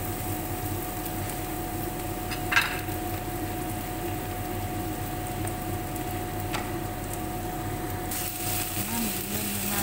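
Sliced onions sizzling in oil in a frying pan, with a couple of light knocks. About eight seconds in, sliced bitter gourd is tipped into the pan and the sizzle turns louder and hissier.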